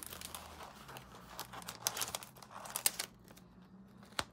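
Crinkling and rustling of a diamond painting canvas's cover sheet and release paper as a corner is peeled back and handled to check the glue's stickiness. It is a run of short crackles, with a sharper one near the end.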